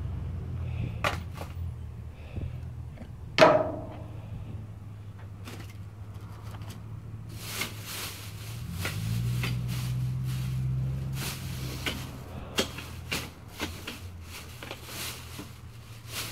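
Plastic trash bags rustling and crinkling as a pole is pushed through the rubbish in a dumpster, with one sharp knock and a short ring about three and a half seconds in. A steady low rumble runs underneath.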